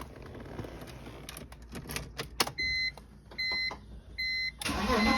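BMW E46 ignition key clicking as it is inserted and turned, then three short, evenly spaced dashboard warning chimes. Near the end the starter cranks and the engine catches, showing the EWS immobiliser now accepts the newly paired key.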